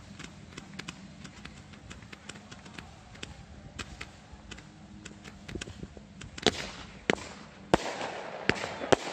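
Ground-fired fireworks, with no mortar shells, sending up streaking comets and stars with a steady patter of sharp crackles and pops. About two-thirds of the way in the firing grows denser and louder, with several loud bangs.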